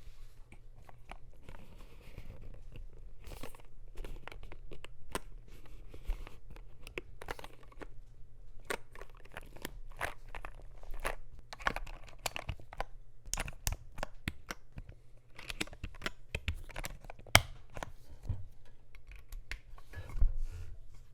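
Typing on a Wooting 60HE mechanical keyboard in a Klippe-T case with lubed Gateron Lekker Hall-effect switches and PBT keycaps, built without foam: a quick, uneven run of keystrokes. One sharper clack comes about 17 seconds in and a deeper thump, like the spacebar, near the end.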